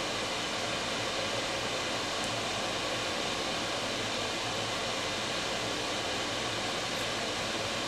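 Steady, even background hiss of room noise with no distinct events.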